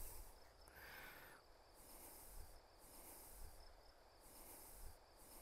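Near silence: faint outdoor ambience with a soft hiss, and a brief faint sound about a second in.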